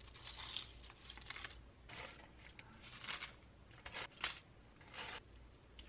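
Dried guava leaves crinkling and rustling in the hand as handfuls are dropped into a pot of water. The rustles come in about six or seven short, dry bursts.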